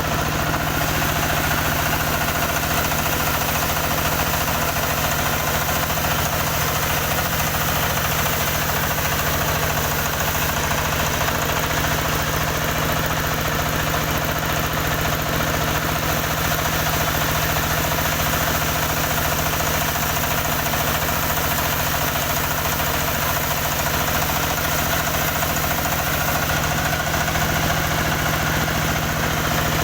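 Engine of a motorised wood saw running steadily at an even pitch, with no rise or fall in speed.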